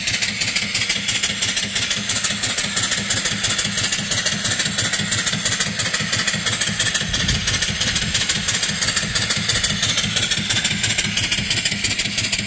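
Homemade vertical steam engine, 3-inch bore and 4-inch stroke, running steadily under load, its exhaust steam venting straight into the open air in rapid, even chuffs over a loud steam hiss.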